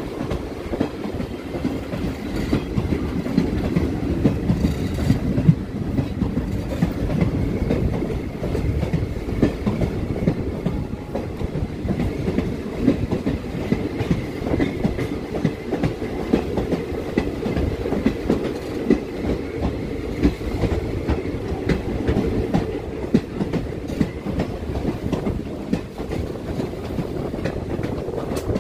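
Passenger train running along the track, heard from on board beside the coaches: a steady rumble with a fast clickety-clack of the wheels over the rails. A faint high wheel squeal comes and goes.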